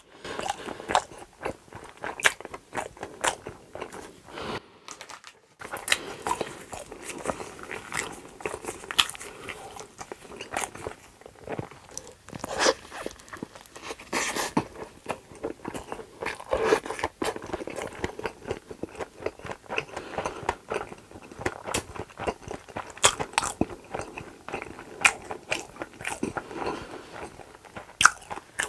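Close-miked eating sounds: a person biting and chewing crunchy food, with many irregular sharp crunches and crackles, broken by a brief silence about five seconds in.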